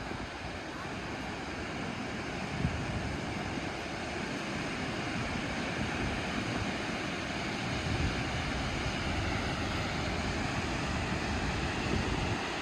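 Steady rushing of a waterfall, with wind buffeting the microphone in low gusts.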